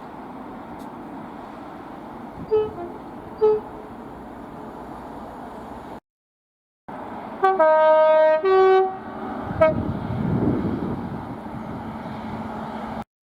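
Train horn sounding in separate clips with abrupt silent cuts between them. First come two short toots about a second apart over a steady running rumble. Then comes a longer horn blast in two parts, a short toot, and a brief swell of low rumble from the train.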